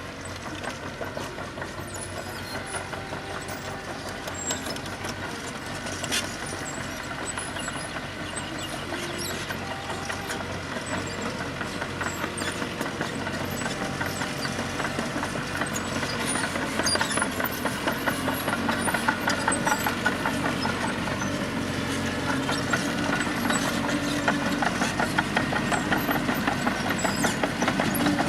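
Diesel engine of heavy road-construction machinery running with a fast, even pulse, growing gradually louder, with a couple of sharp clicks about five seconds in.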